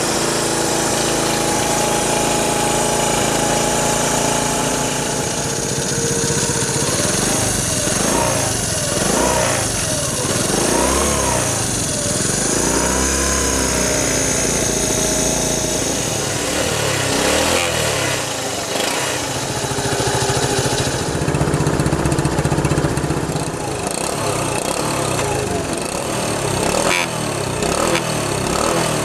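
Honda C90's single-cylinder four-stroke engine running after a cold start. It idles steadily at first, is revved up and down several times in the middle, then runs with smaller blips of the throttle.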